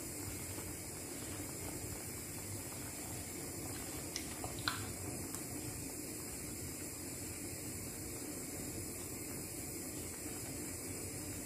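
Chicken and carrots in a milky sauce simmering steadily in a frying pan on a gas stove. Two short sharp clicks come about four and a half seconds in.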